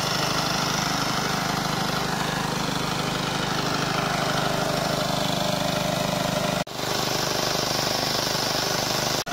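Small engine-driven water pump running steadily, pumping water out of a pond through its discharge hose. The sound drops out for an instant twice, once about two-thirds of the way in and once at the very end.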